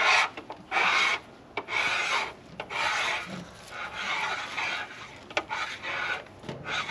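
Knife of a hand-turned counterbore cutter scraping metal out of a liner counterbore in a CAT 3406E diesel block, taking a 2/1000-inch cut. It comes as a string of scraping strokes, roughly one a second, with short breaks between them as the tool is turned by hand.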